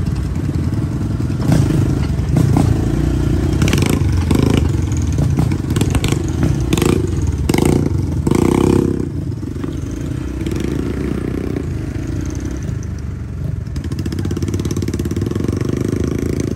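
Off-road vehicle engine running steadily while driving a rough dirt trail, with a run of knocks and rattles from the vehicle jolting over bumps between about four and nine seconds in.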